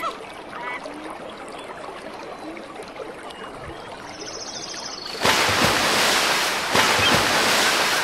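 Rushing whitewater of river rapids, which jumps suddenly to a much louder, even roar about five seconds in.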